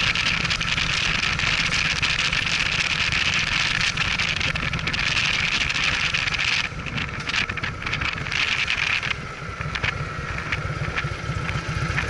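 Cruiser motorcycle riding along with its engine running under a steady rush of wind on the microphone. From a little past halfway the wind noise drops and the engine's low, even beat comes through more clearly.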